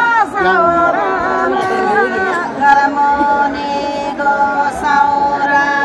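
A woman singing a Nepali folk song unaccompanied, in long held notes that bend and waver in pitch.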